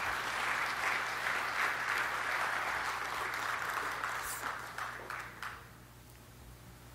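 Audience applauding, dying away into a few last scattered claps about five seconds in.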